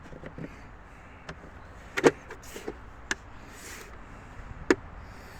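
A few sharp metallic clicks and knocks from handling a freshly reassembled part held by snap rings. The loudest comes about two seconds in and another near the end, some with a brief ring.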